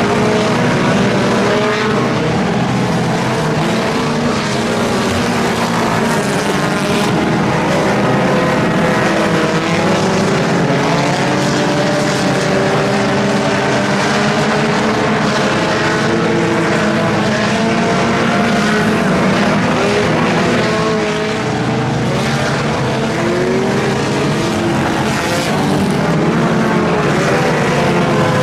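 Several compact-class dirt-track race cars, small four-cylinder sedans, running at speed around the oval. Their engines overlap in rising and falling revs as the cars accelerate and lift through the turns.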